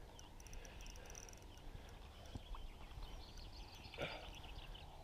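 Faint outdoor ambience with small birds chirping and a low steady rumble, broken by one sharp knock or splash about four seconds in.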